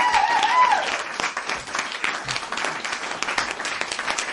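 Audience applause, with a few voices calling out over the clapping in the first second; the clapping slowly tapers off.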